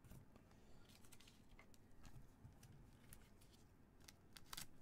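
Near silence: faint room tone with a few soft clicks and rustles, the strongest just before the end.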